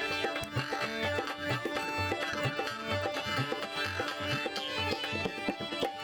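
Live Rajasthani folk music: a hand drum plays a steady, repeating rhythm under sustained melody tones.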